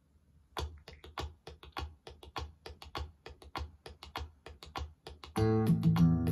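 Recorded music: a sparse intro of evenly spaced drum hits, about three a second, then the full band comes in loud with bass and sustained notes about five and a half seconds in.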